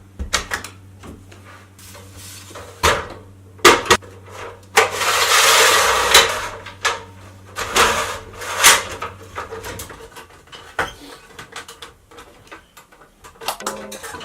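Clattering knocks and clicks of things being handled, with a longer sliding scrape in the middle. A low steady hum stops about ten seconds in.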